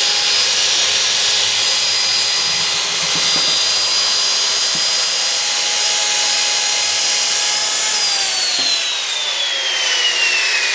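Handheld circular saw running at full speed, its blade cutting a trimming pass through construction lumber along the jig. About eight seconds in the trigger is released and the motor's whine falls steadily as the blade spins down.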